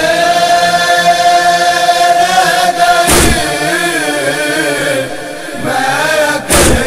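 Noha chanting. Voices hold one long note for about three seconds, then move into a wavering melody. Deep, echoing thumps fall about every three and a half seconds, one about three seconds in and another near the end.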